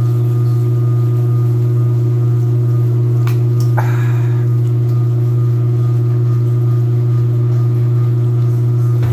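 Washing machine in its spin cycle, its motor giving a loud, steady low hum that does not waver. A brief click comes about three seconds in, with a short rattle just after.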